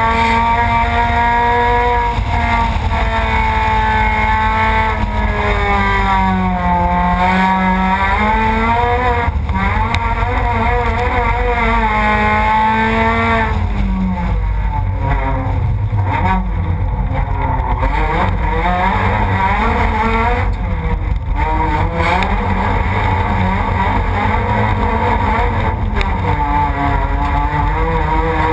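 Rallycross race car's engine heard from an onboard camera, its note rising and falling repeatedly as the car accelerates and lifts, over a steady low rumble. The note turns rougher and less clear for a few seconds about halfway through.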